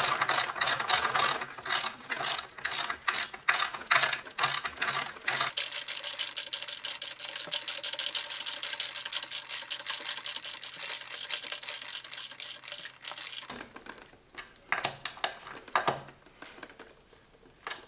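Ratchet wrench clicking rapidly, sped up by fast-forward, as its 10 mm socket drives a hex-head screw into wood. The clicking stops about thirteen seconds in, with a few last clicks near the end.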